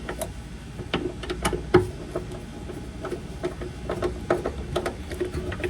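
Irregular clicks and light taps of parts being handled while a washer's wiring harness and ground wire are fitted, over a steady low hum.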